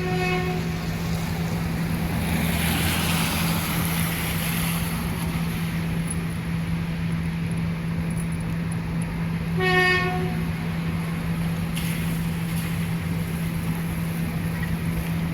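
A train rolls along with a steady low drone, and its whistle gives two short toots: a faint one at the start and a louder one about ten seconds in.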